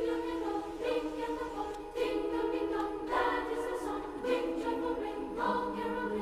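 Background music: a choir singing sustained notes, the chords changing about once a second.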